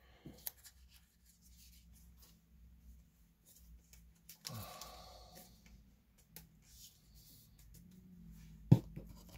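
Faint handling of trading cards: soft rustles and small clicks as cards are flipped, with one sharp tap near the end.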